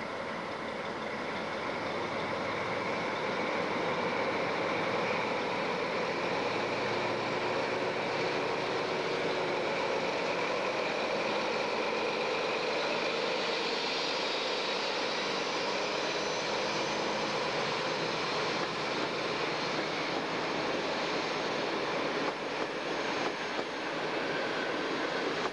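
PKP SU46 diesel locomotive running as it comes along the platform and passes close by, followed by its passenger carriages rolling past on the rails.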